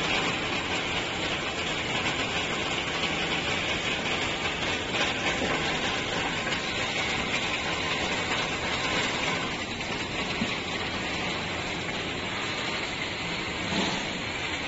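Puffed-snack processing line running: a steady mechanical hum and hiss from the conveyors and fan, with a light knock near the end.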